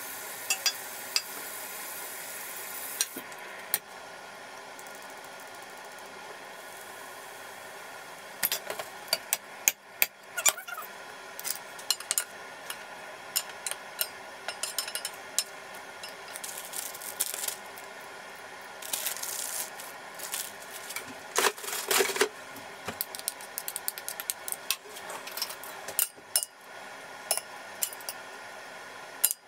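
Wooden spatula and fork clacking and scraping in a frying pan as spaghetti is tossed in garlic and chilli oil: irregular clicks over a steady hiss, growing busy about eight seconds in.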